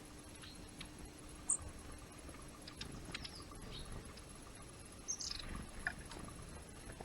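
Small garden birds at a winter feeder giving scattered short, high chirps, the sharpest about a second and a half in and a falling call about five seconds in, with faint ticks and taps between them.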